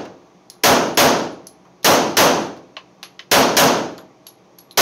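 ATI FXH-45 Moxie .45 ACP pistol fired in three quick double taps, the two shots of each pair about a third of a second apart, with one more shot right at the end, each shot ringing out in the indoor range. Light metallic ticks and brief high pings sound between the shots.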